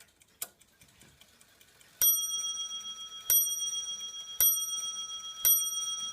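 French count-wheel clock movement striking: its hammer hits the bell four times, about once a second, and each blow rings on into the next. A faint click comes about half a second in, before the strikes.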